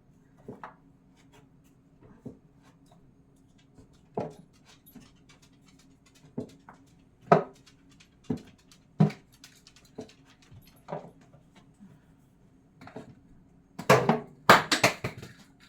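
Plastic and glass seasoning bottles being set down and shuffled on a kitchen cabinet shelf: irregular single knocks and clinks, with a louder burst of clatter near the end, over a faint steady hum.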